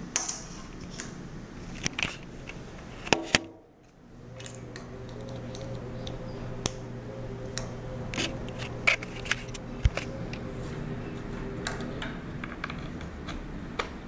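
Scattered small clicks and taps from a USB charging cable and camera being handled, over a steady low hum that comes in about four seconds in and fades near the end.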